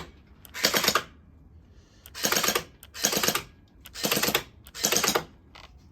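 Electric gel blaster turret firing in five short full-auto bursts, each a quick rattle of shots about half a second long, roughly a second apart, with the gel beads smacking a wall.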